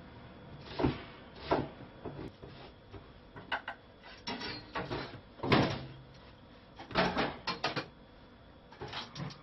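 Kitchen work sounds: irregular knocks and clatters of a knife, cutting board and pots being handled at a gas stove, about a dozen separate strikes, some in quick clusters, the loudest a little past halfway.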